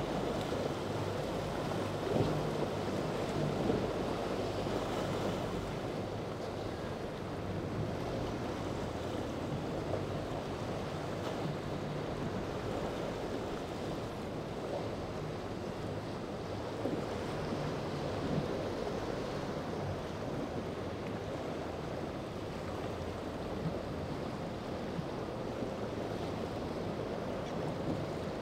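Waves breaking and rushing in the inlet, with wind buffeting the microphone and the low steady drone of boat engines underneath.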